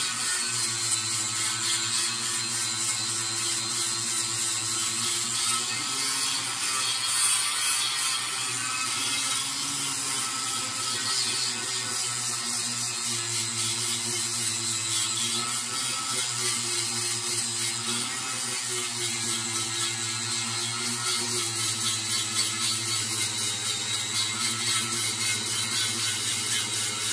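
Electric angle grinder grinding a steel ring, its disc biting into the metal continuously. The motor's whine wavers and dips a little in pitch now and then as the pressure on the work changes.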